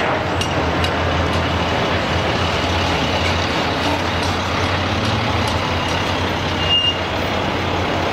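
Steady noise of trucks and road traffic with a low hum under it. A short high squeal comes about seven seconds in.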